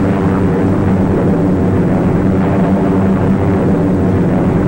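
Aircraft engines droning steadily, an even hum that holds its pitch throughout.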